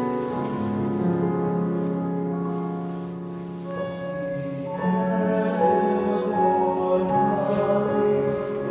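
Digital keyboard playing a slow instrumental passage of held chords without voices. The chords grow louder about five seconds in.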